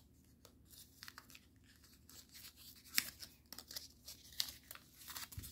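Folded paper crinkling and rustling in the hands as a layer of the model is worked into a fold: faint scattered crackles, the sharpest about three seconds in and again just after four seconds.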